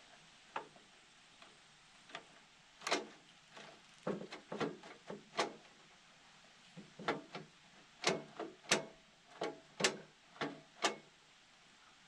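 Irregular clicks and light knocks of hand tools and metal furnace parts being handled during disassembly of an RV furnace, about twenty in all, some ringing briefly.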